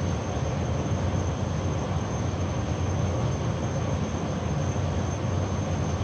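Steady low running noise of a steam boiler's burner firing as steam pressure builds toward the Vaporstat's cut-out point, mixed with an air conditioner running in the background.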